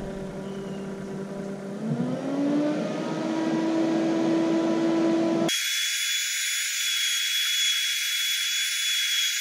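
Mosquito Magnet Patriot Plus trap's fan motor running with a steady whine during the unit's startup cycle; about two seconds in its pitch glides up as the fan speeds up. About halfway through the sound abruptly turns thin and high, its lower part gone.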